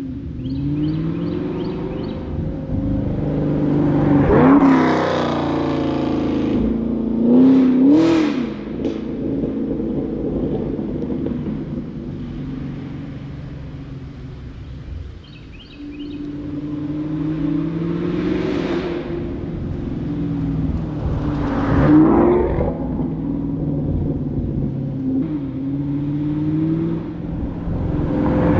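Camaro SS's 6.2-litre V8, breathing through Kooks headers and a Borla ATAK exhaust, making hard runs. Its pitch climbs through each gear and drops back at each upshift, loudest a few seconds in, again about eight seconds in and near the end, as the car comes close.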